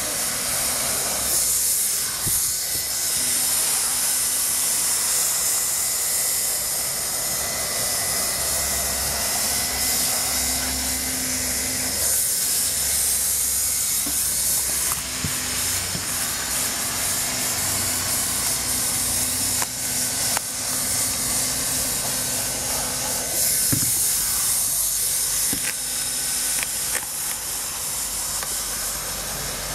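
Handheld hot-air plastic welder running: a steady hiss of hot air over the hum of its blower, as it tacks and heat-welds a TPO roofing membrane overlay in place.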